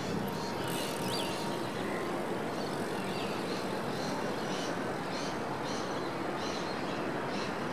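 Steady city traffic noise, with birds chirping in short repeated notes over it, the chirps coming more often in the second half.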